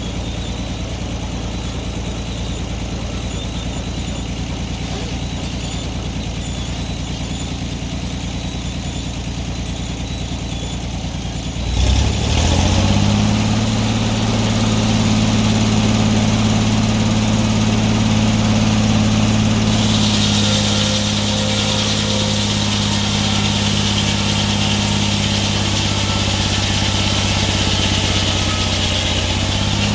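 Antique sawmill's engine running steadily at low speed, then revving up about twelve seconds in and holding a louder, higher, steady run. Partway through, a hiss joins the engine and stops near the end.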